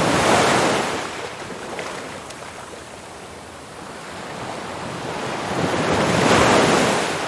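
Ocean waves washing in twice, each swelling and then fading away.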